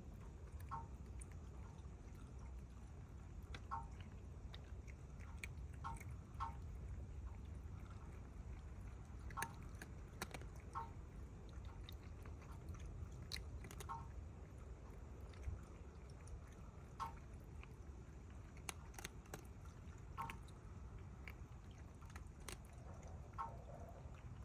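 Cats chewing food, with faint sharp crunches at irregular intervals, about one every second or two, over a steady low background rumble.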